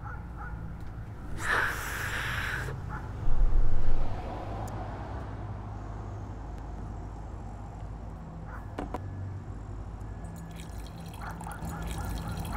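Liquid sounds: a short burst of splashing or gurgling about a second and a half in, then a loud low thud, then a quieter stretch of faint liquid noise over a low hum.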